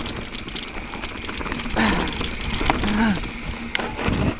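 Full-suspension mountain bike (Santa Cruz Hightower) descending a rough, rocky trail: the bike rattles and knocks over the rocks, with steady wind and tyre noise on the chest-mounted camera's microphone. There are two short vocal sounds from the rider, about two and three seconds in.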